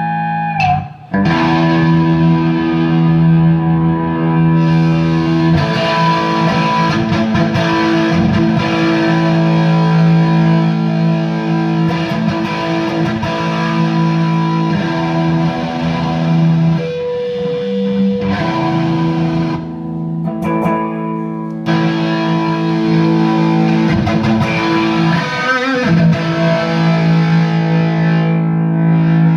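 Stratocaster-style electric guitar played through distortion: ringing chords held for several seconds at a time. A brief cut about a second in, and two short breaks past the middle, one of them a single held note.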